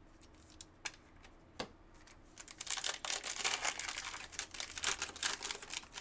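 A few light plastic clicks as a trading card is handled at a rigid plastic toploader, then, about two seconds in, the foil wrapper of a football card pack crinkling and tearing as it is ripped open, for about three seconds.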